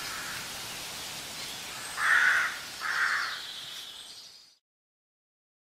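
Steady hiss of background ambience with two short, raspy animal calls a little under a second apart, about two seconds in; the sound then fades out to silence.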